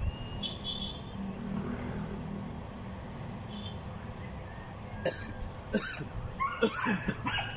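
Wooden chess pieces set down on a wooden board: a few sharp clicks in the second half, the loudest cluster near the end.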